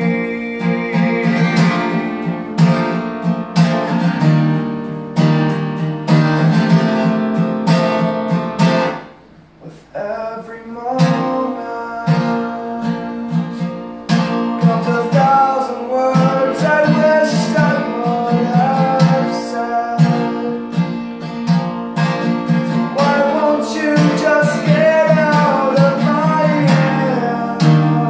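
A steel-string acoustic guitar strummed in a steady rhythm, with a man singing over it in places. About nine seconds in the playing stops briefly, then the strumming comes back in.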